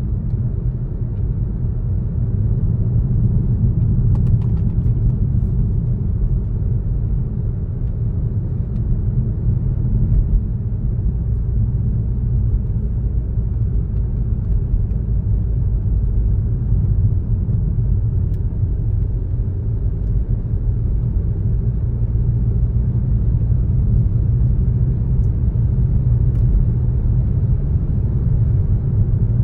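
A car driving along at steady speed: a continuous low rumble of engine and tyres on the road.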